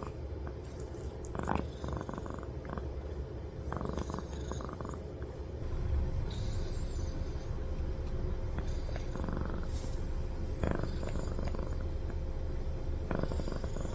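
Domestic cat purring steadily, very close to the microphone, while being stroked.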